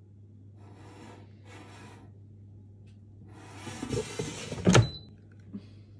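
Gourmia digital air fryer's basket drawer sliding in its housing: two short scraping rasps, then a longer slide that ends in a sharp clunk about three-quarters of the way through, followed by a light click.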